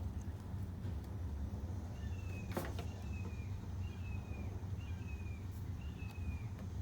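A bird calling five times, each a short whistled note falling slightly in pitch, about a second apart, over a steady low rumble; a single sharp click sounds about two and a half seconds in.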